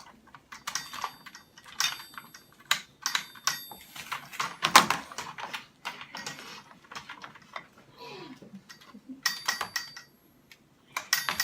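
Hard plastic toy parts being handled, clicking and clattering in an irregular run of sharp clicks, with a short pause near the end.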